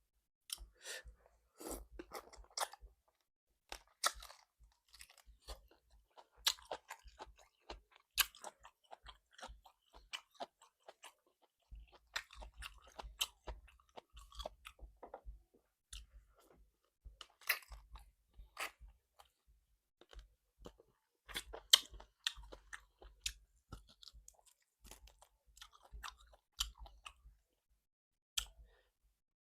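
Close-miked chewing and biting of salt-baked chicken, with irregular wet clicks and crunchy bites and a short pause a little before halfway.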